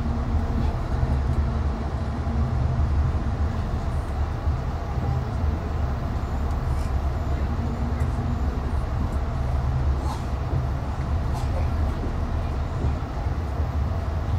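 Amtrak train running along the track: a steady low rumble with a few faint clicks.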